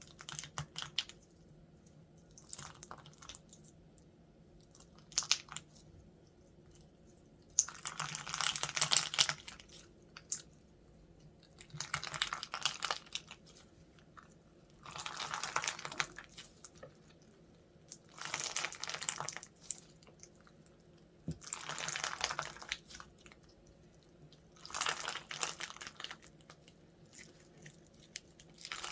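Slime being squeezed and pressed by hand, crackling and popping in repeated bursts. A few short, faint ones come first, then longer, louder bursts about every three to four seconds.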